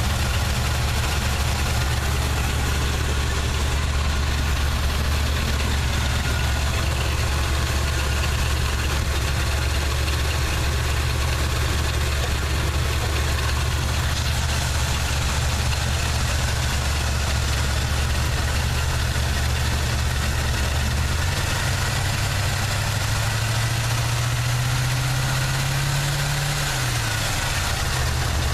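Chevrolet 350 small-block V8 in a 1979 Chevy truck running at idle with a nagging misfire. About two-thirds of the way in its pitch rises slowly, then drops back shortly before the end.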